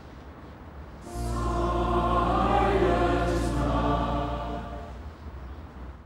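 Choir music comes in about a second in, voices holding chords over a low steady drone, swelling and then fading away near the end.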